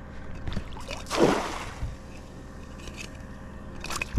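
A splash about a second in, as a baited crab trap is tossed a short way into shallow water by the rocks, with a few light clicks near the end.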